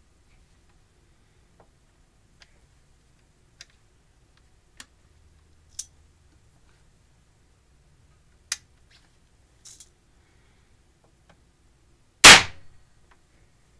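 Percussion lock of a .50 Hawken muzzleloader: a few faint clicks as the lock is handled and the hammer cocked, then near the end a single sharp, loud crack as the hammer falls and fires a #11 percussion cap on the nipple. The clean ignition shows the bent hammer cup now strikes the nipple properly.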